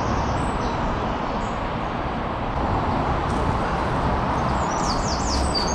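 Steady rush of fast-running river water. Near the end a bird chirps a quick run of high, falling notes.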